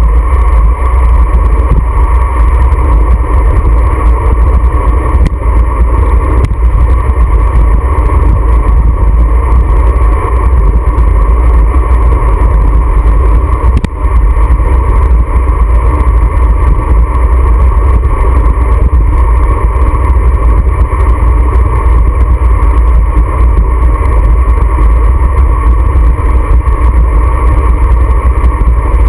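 Loud, steady wind rumble on a road bike's handlebar-mounted action camera moving at speed, with a brief dip about halfway through.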